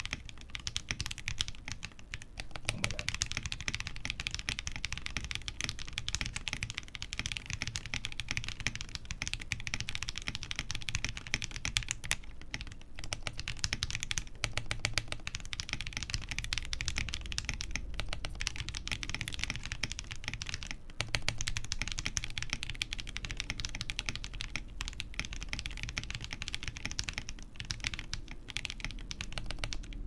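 Fast, continuous typing on a Ginkgo65 Pro custom mechanical keyboard with lubed Dang Keebs Cookies + Cream tactile switches, PBT keycaps and silicone-poron gaskets, broken by a few short pauses. It sounds a little muted because there is little room under the PCB for the sound to build up.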